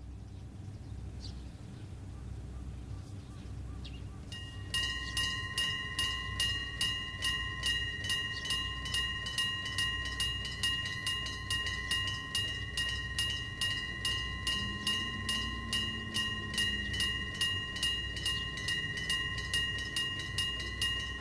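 Electric-bell level-crossing warning bell starts ringing about four seconds in and keeps going with a fast, even clanging and a clear ringing tone; a well-ringing bell.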